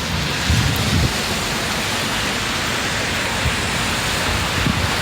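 Heavy rain falling, a steady loud hiss heard close on a phone's microphone, with a few brief low rumbles from the microphone being buffeted.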